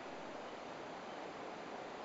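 Steady, even rush of a river flowing through a rocky gorge.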